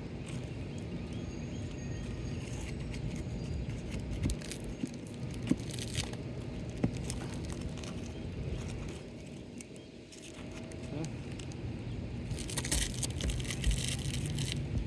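Asphalt roof shingles being pried up from their sealed strips: scattered clicks and crackles, with a denser run of scraping and crackling near the end, over a steady low rumble.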